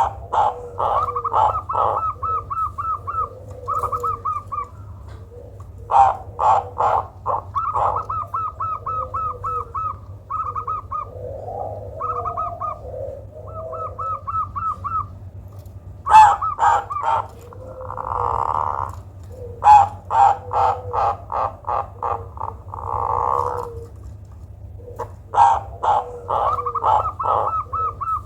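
Zebra dove (perkutut) singing: four phrases of quick, rapidly repeated cooing notes, each opening with a few sharper notes. Two short noisy bursts come in the middle. It is an unusual song that is said to suit as a lure for other perkutut.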